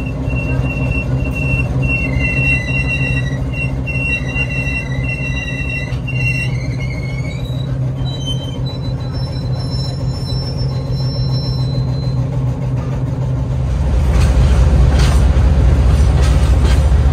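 Train wheels squealing on the rail, with several thin high tones coming and going over the steady low rumble of the MLW M420W diesel locomotive. Near the end the engine rumble gets louder and deeper.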